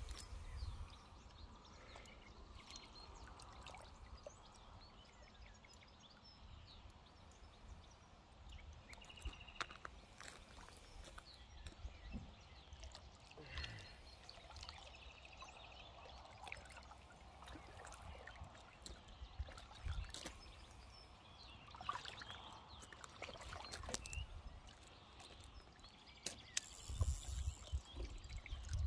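Faint splashing and sloshing of lake water as a hooked fish thrashes at the surface and a landing net is worked through the water, with louder splashing near the end.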